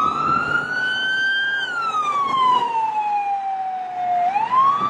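Electronic siren wailing: the pitch rises over about two seconds, falls slowly over the next two and a half, and starts to rise again near the end.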